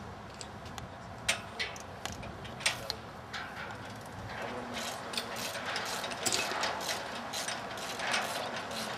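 Irregular sharp metallic clicks and knocks from work on an aluminium stage truss, growing busier over the second half.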